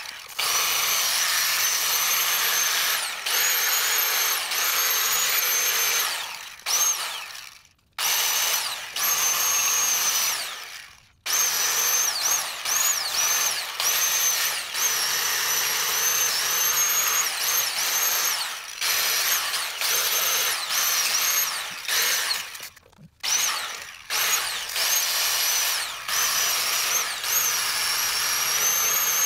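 Cordless power tool spinning a wire wheel against a truck axle hub flange, scrubbing off old gasket material. A high motor whine that sags in pitch as it bites, stopping and restarting three times.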